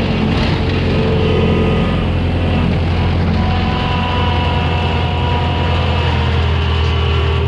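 New Holland L775 skid steer's diesel engine running steadily, with several steady higher-pitched whines over the engine note.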